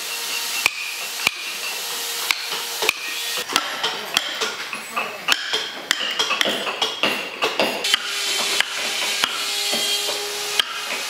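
Wooden mallet striking a wood-carving chisel into a log: a steady run of sharp knocks, about one or two a second, as chips are split off the wood.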